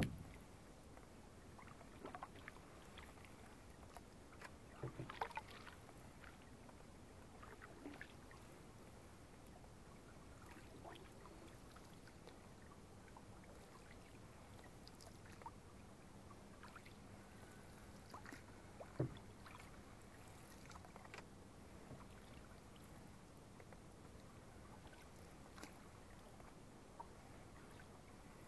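Faint, quiet canoe paddling: wooden paddles dipping and pulling through calm water, with a few brief knocks and splashes, the sharpest about five seconds in and again near nineteen seconds.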